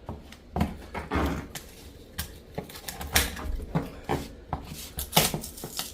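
Irregular knocks and clatters of wooden trim boards being handled and pried off, about a dozen sharp hits spread unevenly.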